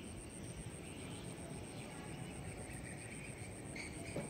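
Faint outdoor background: a steady low rumble with a thin, high-pitched tone pulsing evenly throughout.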